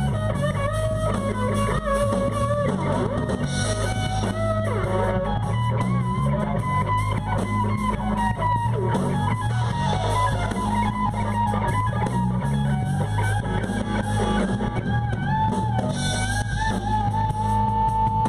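Live rock band playing an instrumental passage: an electric guitar plays a lead line with bent notes over bass guitar and drum kit.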